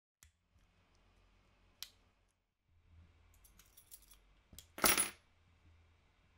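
A bunch of keys on a key ring jingling: a few scattered small metallic clinks, then a louder jangle about five seconds in.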